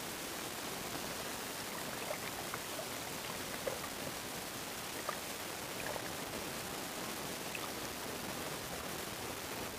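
Steady watery hiss of shallow sea water heard through a submerged camera, with a few faint scattered clicks and pops.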